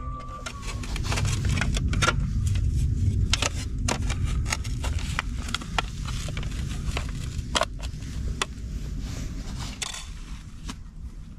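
A metal food tin being pressed and scraped against a rock, giving many sharp crackling clicks and metallic scrapes over a steady low rumble.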